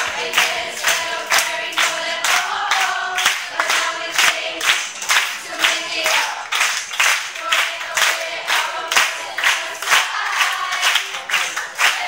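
A group of young voices singing a chant together in unison, with steady rhythmic hand clapping, about three claps a second.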